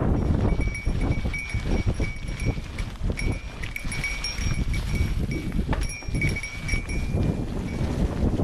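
Surly Karate Monkey mountain bike riding over a rough trail: a steady rumble of tyres and wind with frequent rattling knocks from the bike, and a small bell on the bike jingling in short bursts as it jolts.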